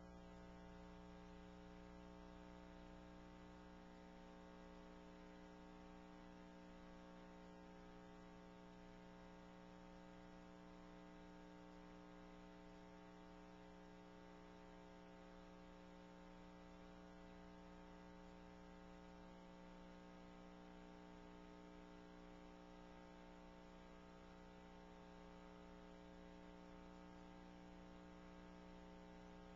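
Near silence with a faint, steady electrical hum made of several fixed tones, unchanging throughout.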